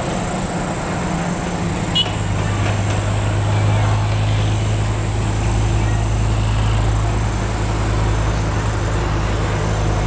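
A steady low motor hum that sets in about two seconds in and holds evenly, with a few faint high chirps over it.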